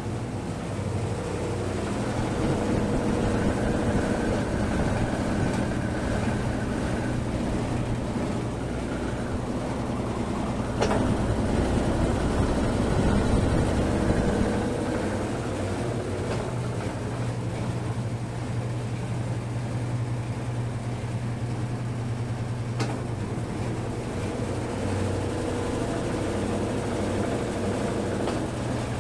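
Brastemp 12 kg BWK12 washing machine running, a steady motor hum with fainter whining tones that come and go. A click about 11 seconds in, after which it runs louder for a few seconds, and another click near 23 seconds.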